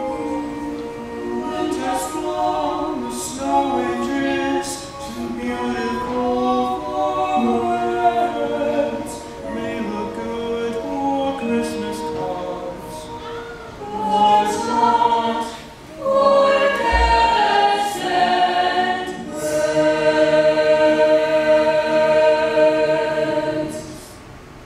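Choir singing in harmony, ending on a long held chord that drops away at the very end.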